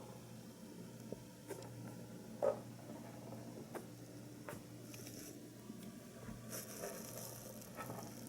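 Pet rabbit eating hay pellets from a pepper shaker: scattered small clicks and crunches as pellets rattle and the shaker is nudged, with one louder knock about two and a half seconds in. Short breathy sniffs come a few times in the second half.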